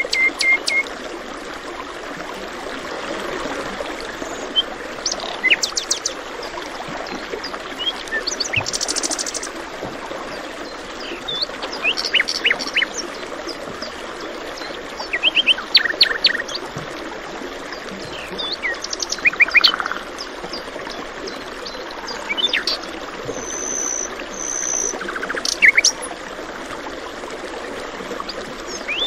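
Several birds chirping and trilling in short, scattered phrases over the steady rush of flowing water, a stream.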